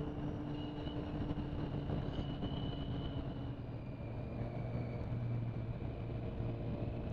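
Motorcycle engine running at a steady cruise, a constant engine note under a rush of wind and road noise, heard from the moving bike.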